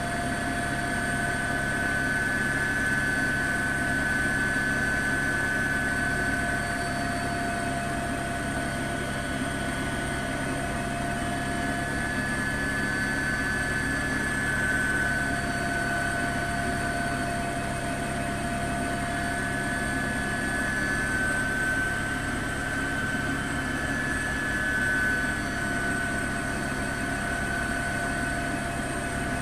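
Steady helicopter noise: a constant high turbine whine over a low rotor drone.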